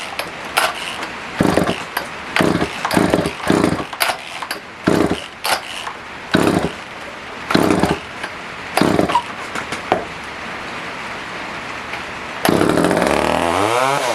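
Poulan Wood Shark's small two-stroke chainsaw engine pull-started on choke: for the first ten seconds there are a string of loud, uneven bursts as it is cranked and sputters. About twelve and a half seconds in it catches and runs with a rising, wavering pitch. It runs only on choke because the carburettor jets are set far out and it is not pulling enough fuel.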